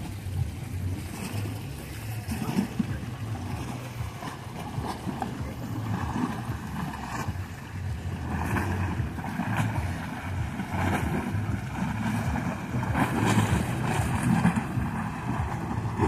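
Wind buffeting the microphone over small sea waves washing against a concrete breakwater, with splashes coming more often in the second half.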